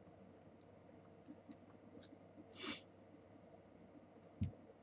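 Quiet room tone with a few faint clicks. A short breath near the microphone comes about two and a half seconds in, and a single low knock comes near the end.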